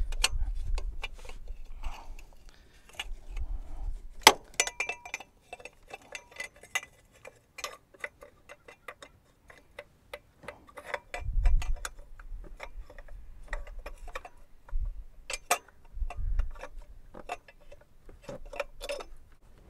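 Irregular metallic clicks and clinks of hands and tools working parts onto a Toyota 3.0L V6 engine as the thermostat housing is fitted back in, with a few dull thumps of handling.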